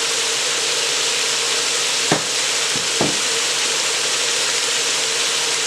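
Chicken and onion sizzling steadily in hot oil and red curry paste in a pan, with two short knocks about two and three seconds in.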